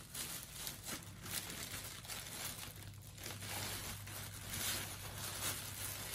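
Plastic delivery bag rustling and crinkling in irregular bursts as hands rummage through the packaged items inside it.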